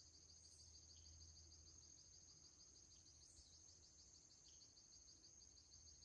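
Faint, steady, high-pitched insect trill, pulsing rapidly without a break: crickets or similar insects calling.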